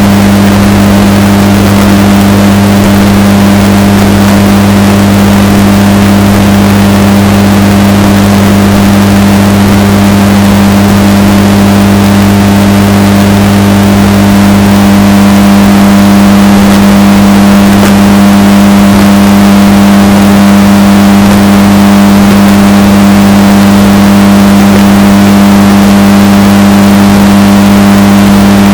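Washing machine running, its motor giving a loud, steady drone with strong low hum, heavily bass-boosted and distorted almost to full scale.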